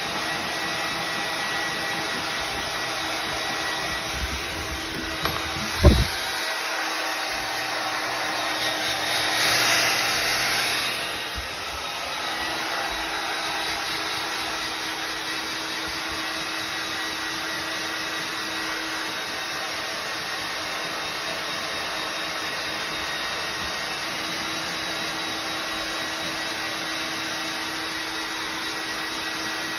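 Hair dryer blowing steadily with a faint hum, briefly louder and hissier around ten seconds in. A single sharp thump about six seconds in is the loudest sound.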